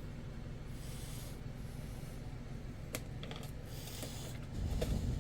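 Handling noises from a flex cable and boat hull being worked by hand: soft rubbing and scraping, a sharp click about three seconds in, and a low bump with a few light clicks near the end, over a steady low hum.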